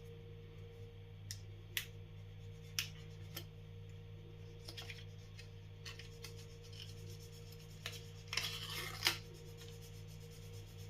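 Shaving brush working lather in a shave bowl: a few light clicks and taps, then about a second of scratchy rubbing near the end. A steady low hum runs underneath.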